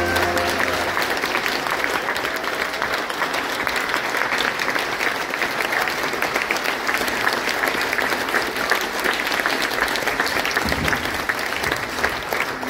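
Audience applauding at the end of a song, the last held notes of the music dying away about a second in.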